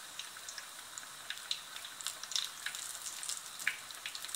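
Besan-coated potato fritters (aloo bhajiya) deep-frying in hot oil in a steel kadhai: a steady sizzle dotted with many small crackles and pops.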